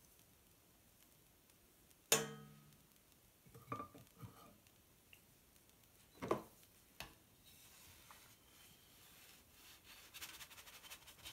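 Kitchen dishes and utensils clinking and knocking on a table: one sharp ringing clink about two seconds in, a few smaller knocks after it, then near the end a spatula scraping across the crepe griddle as it slides under the pancake.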